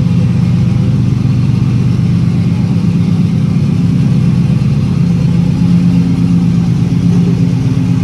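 First-generation Subaru Impreza's flat-four boxer engine running steadily at low revs as the car pulls slowly out of a parking space.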